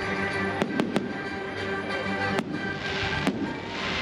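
Fireworks going off over loud music: several sharp bangs, then a crackling shower that swells near the end.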